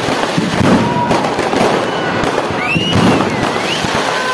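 Aerial fireworks bursting overhead one after another, with a dense, continuous crackle.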